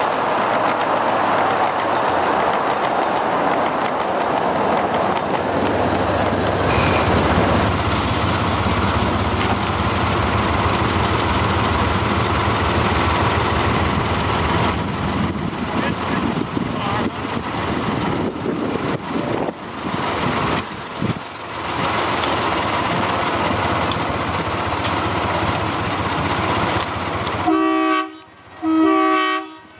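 Miniature railroad train running along its track against a steady rushing noise, with wind on the microphone. Near the end the small locomotive sounds two short horn toots.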